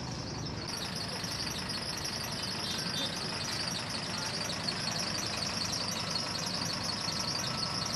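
A vehicle engine idling steadily under a constant high hiss.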